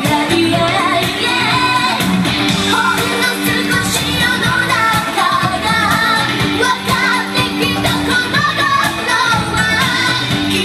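Pop dance track with a steady beat and women singing into handheld microphones over it.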